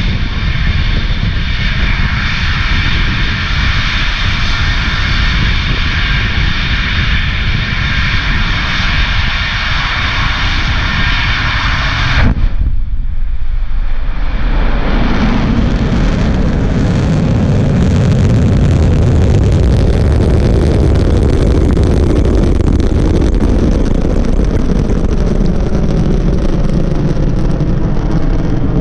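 A steady hiss, then about twelve seconds in the nine Merlin engines of a Falcon 9 first stage ignite and the sound changes suddenly into a loud, low rocket roar. The roar grows and fills out as the rocket lifts off and climbs.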